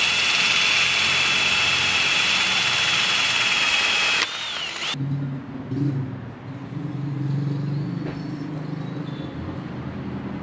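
Cordless drill running with a steady high whine as it drives a screw into a plastic camera bracket. It winds down and stops about four seconds in, leaving a quieter low hum.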